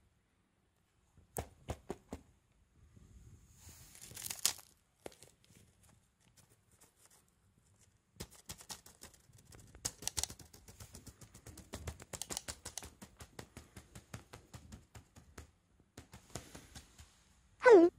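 Cat's claws and teeth working at a fabric fish toy on a cloth sofa cover: scratchy rustling and quick rapid clicks as the claws catch on the fabric, denser in the second half. Near the end a short, loud cry falls in pitch.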